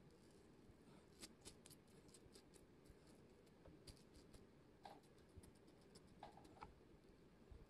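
Faint, scattered scrapes of a safety razor cutting stubble on the upper lip in short strokes, on skin coated with butter instead of shaving cream.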